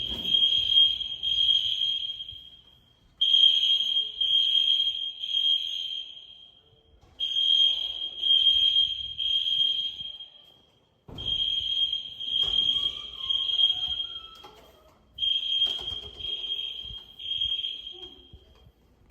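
EST Genesis fire alarm horns sounding a loud, high-pitched tone in groups of three blasts separated by short pauses, about every four seconds. This is the temporal-three evacuation signal, sounded here for a fire alarm system test.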